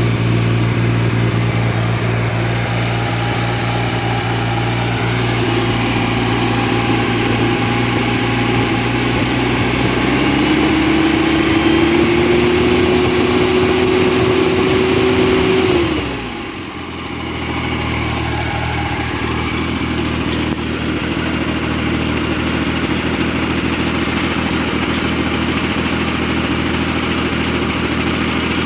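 John Deere 322 lawn tractor's engine running at idle, throttled up about ten seconds in and held at a higher, steady speed for several seconds, then throttled back down and idling again. It is being run after an oil change so the new oil filter fills before the oil level is rechecked.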